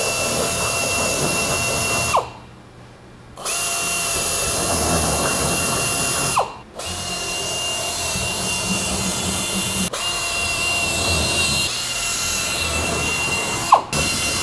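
Pneumatic air drill running in long bursts with a steady whine as it drills 13/64-inch rivet holes through the plastic of a portable toilet's waste tank and side panel, slightly widening each hole for rivet clearance. The drill stops for about a second around two seconds in, dips briefly around six seconds in, and stops just before the end.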